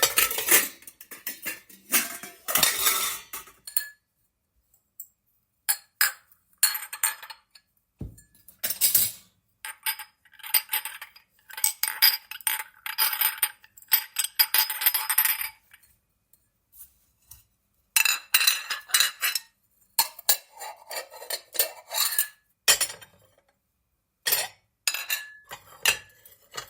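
Dishes and cutlery being sorted and put away: metal cutlery clinking and dishes knocking against each other in irregular flurries, with brief pauses about four seconds in and again around sixteen seconds.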